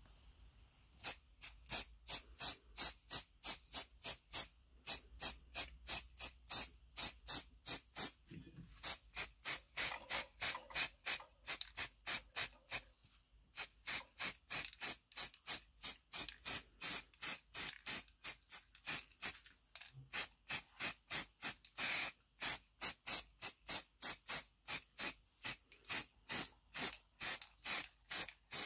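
Aerosol can of Hammerite High Heat matt black spray paint hissing in short, quick bursts, about three a second, with a few brief pauses.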